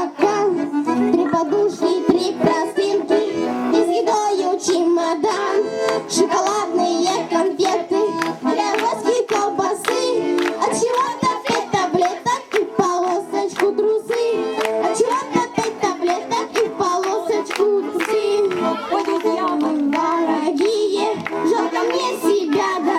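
Children singing a camping song to instrumental accompaniment.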